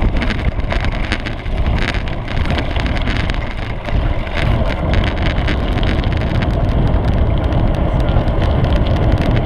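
Mountain bike rolling along a dirt trail, heard from a camera mounted on its seat post: a steady low rumble of wind on the microphone and of the bike moving, with many small rattles and clicks from the frame over the bumps.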